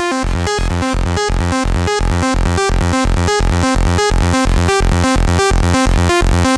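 Electronic music with a steady beat, about four beats a second, and repeated synthesizer notes.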